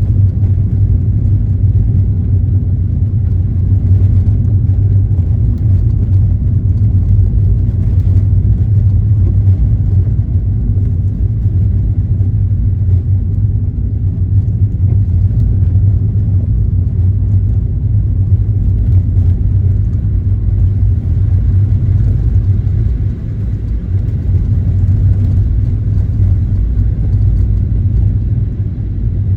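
Car driving: a steady low rumble of road and engine noise, dipping briefly about three-quarters of the way through.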